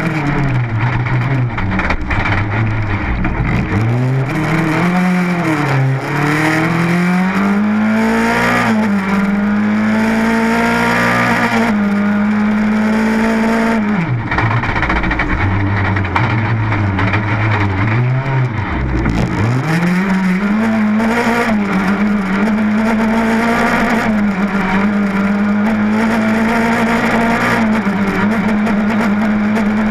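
Rally car engine heard from inside the cabin, driven hard on a special stage: the revs climb through the gears, fall sharply about 12 s in and again around 19 s as the driver lifts and shifts down, then hold high and steady near the end. A steady rush of road and tyre noise runs underneath.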